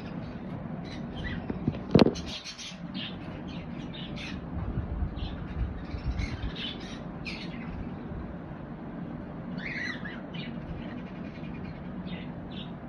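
Pet conure parrot giving short, high squawks and chirps, repeated at irregular intervals, with one sharp click about two seconds in.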